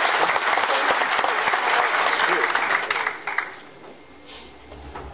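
Audience applauding, dense clapping that dies away about three and a half seconds in. A faint low steady hum begins near the end.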